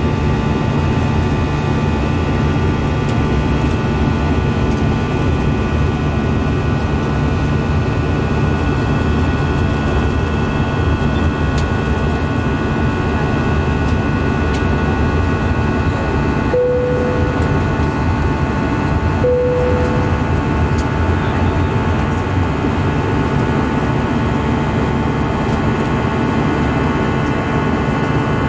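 Airliner cabin noise from a passenger seat: the steady drone of the jet engines and rushing air, with several steady hums in it. About halfway, two short tones of the same pitch sound a few seconds apart.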